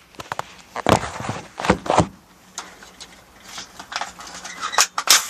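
Airsoft rifle firing and being handled: a handful of sharp clacks and knocks, the loudest about a second in and near two seconds in, with two more near the end.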